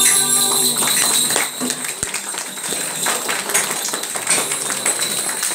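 A children's song with jingling accompaniment ends about half a second in. After it, scattered jingles and taps sound over the chatter and shuffling of a group of young children.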